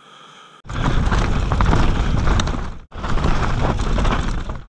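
Mountain bike riding fast down a dirt forest trail, as picked up by a rider-mounted action camera: wind rushing over the microphone, tyres rolling over dirt, leaves and stones, and the bike rattling over the bumps. The noise starts abruptly just under a second in, breaks off for an instant about three seconds in and picks straight up again, where two riding clips are cut together.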